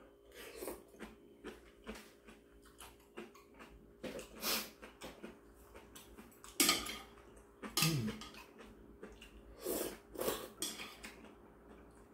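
A person eating kalguksu noodle soup: repeated slurps of broth and noodles, with chewing and a spoon and metal chopsticks clinking against the bowl. The slurps come every second or two, over a faint steady hum.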